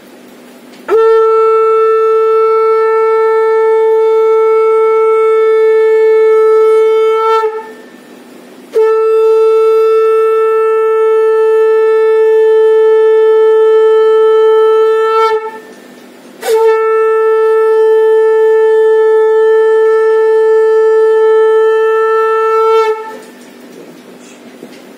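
Conch shell (shankh) blown in three long blasts of about six seconds each, each holding one steady pitch, with a short pause for breath between them. This is the conch sounded to open a Hindu puja.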